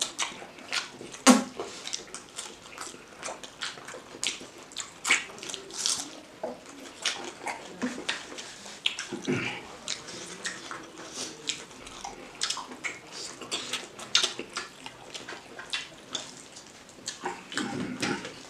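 Close-up wet eating sounds: chewing and lip smacks, and fingers squishing curry-soaked rice, as an irregular run of short clicks and squelches.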